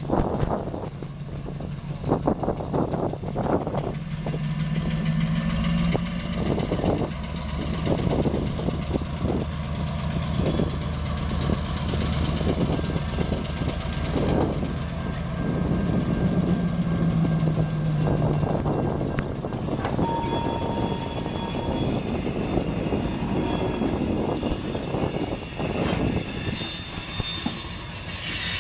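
EMD MP15DC switcher locomotive's diesel engine running as it moves past with a tank car, its note swelling twice, with wheels clicking over the rail joints. From about twenty seconds in, the wheels add a thin high squeal on the rail.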